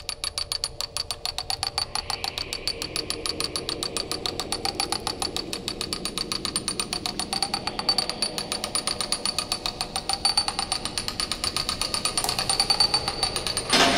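Ratchet wheel and pawl clicking in a rapid, even rhythm of several clicks a second, growing louder toward the end, over a faint drone that swells every few seconds.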